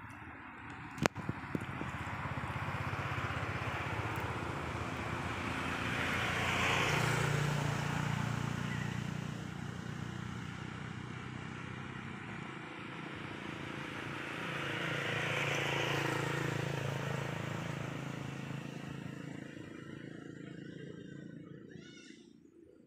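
Motor vehicles passing by, engine hum and road noise swelling up and fading away twice. A single sharp click about a second in.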